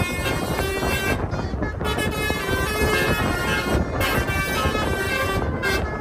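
A multi-tone 'telolet' air horn plays a tune of short, changing notes over the steady rumble of a car driving.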